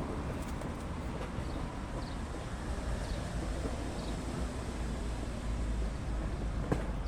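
Outdoor background noise: a steady low rumble of wind on the microphone, with a few faint, short high chirps about a second apart in the middle.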